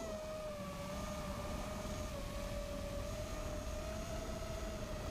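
Small multirotor drone's motors and propellers whining steadily, one pitched hum whose pitch wavers slightly, over a constant rushing noise.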